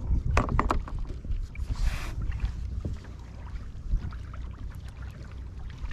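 Plastic sit-on-top kayak moving slowly on calm sea: a steady low rumble of wind and water against the hull. Several sharp knocks and clicks from gear being handled on the deck come in the first second, and a short hiss about two seconds in.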